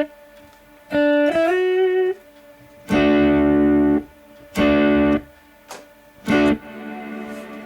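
Electric guitar (a Telecaster) played through a Strymon Big Sky MX reverb pedal set to freeze: a note bent upward, then a few chords, each starting and stopping abruptly with quiet gaps between them.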